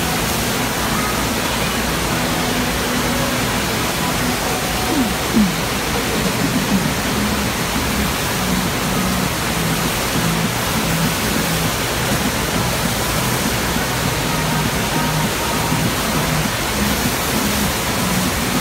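Steady rush of water from a FlowRider wave machine: pumped water sheeting at speed up the surf surface.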